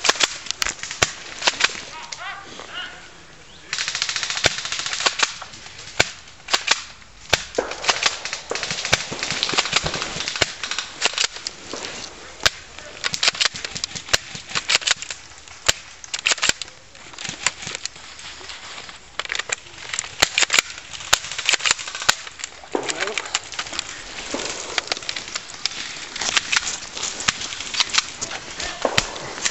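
Airsoft guns firing again and again: many sharp cracks, some single and some in quick rapid-fire bursts.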